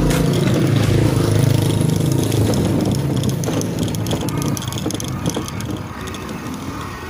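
A motorcycle engine passing close by. Its note drops in pitch and fades over the first few seconds, leaving light street traffic and wind noise.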